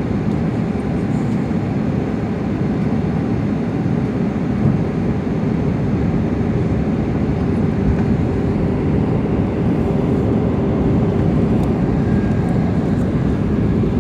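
Steady cabin noise inside an Airbus A320 descending to land: airflow and engine noise heard through the fuselage. A faint steady hum comes in about halfway through.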